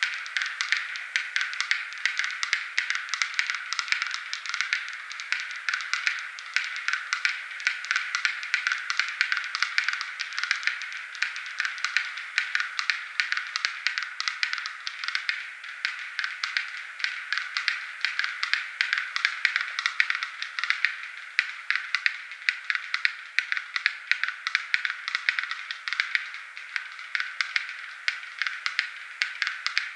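Black-billed capercaillie display song: a dense, unbroken run of dry clicks, many a second, in the male's mating display.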